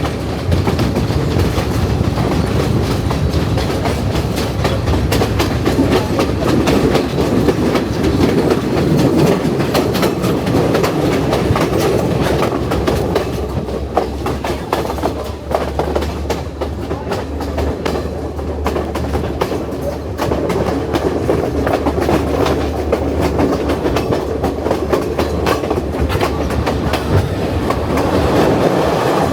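Hill-country passenger train running along the track, its wheels clattering steadily over the rails with many irregular clicks and a constant low rumble.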